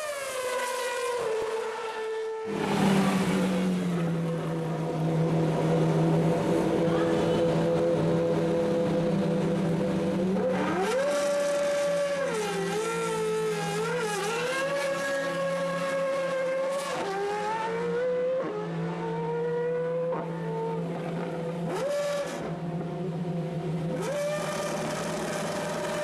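Formula Renault 3.5 single-seaters' Zytek V8 engines running as the cars pull away down the pit lane one after another. Several engine notes overlap, mostly holding a steady pitch, with brief dips and rises in revs.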